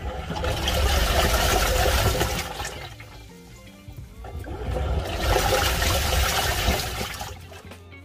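Water sloshing and churning in the drum of a Bosch Series 6 top-load washing machine as its impeller agitates the clothes during the rinse cycle. The sloshing comes in two long surges of about three seconds each, with a short lull between.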